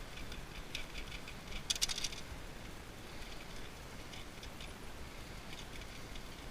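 Small parts clicking, scraping and rattling as electronic scrap is taken apart by hand, with a short cluster of sharper clicks about two seconds in.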